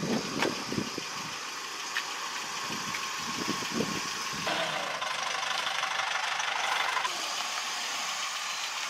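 A vehicle engine idling, with scattered knocks and rattles, and a stretch of louder hiss about halfway through.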